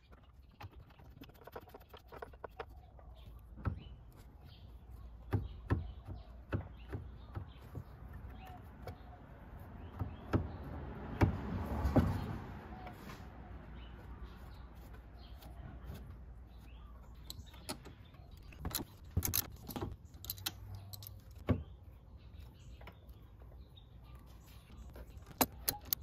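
Small metallic clicks and clinks of hand-tightening work: the fork triple-clamp pinch bolts on a Honda PCX being threaded in and tightened with a 3/8-drive ratchet and 14mm socket. A longer rustling, scraping stretch comes about halfway through.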